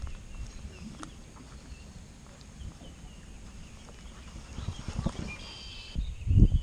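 Wind rumbling on the camera microphone, with irregular low knocks and buffets that grow louder about two-thirds of the way through.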